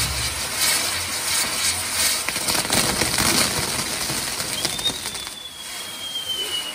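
Castillo fireworks tower burning: its fountains and spinning wheels hiss and crackle steadily. About four and a half seconds in, a thin high whistle starts and slowly falls in pitch.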